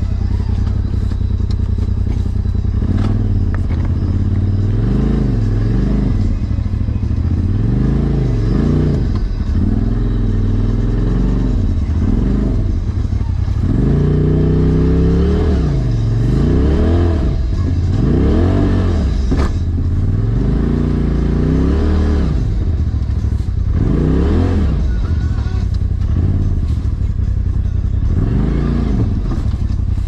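Polaris RZR Turbo S side-by-side's turbocharged twin-cylinder engine revving up and dropping back over and over, its pitch rising and falling every second or two as the machine crawls over rocks.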